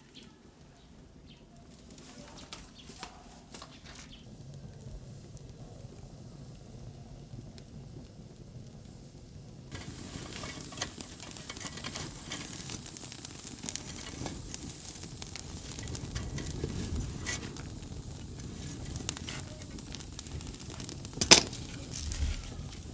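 Blue-brick rocket stove in use: crackling and sizzling with scattered clicks. It turns louder and hissier about ten seconds in, and one sharp clack comes near the end.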